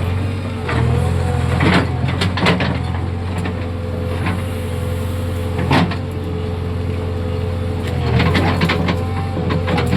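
JCB excavator's diesel engine running steadily with a slightly wavering whine over it. Sharp knocks and clanks come a few times, about two seconds in, near the middle, and several close together near the end.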